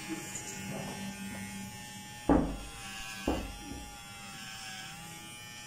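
Electric hair trimmer buzzing steadily as it trims short hair at the nape of the neck. Two dull bumps come about a second apart, near the middle.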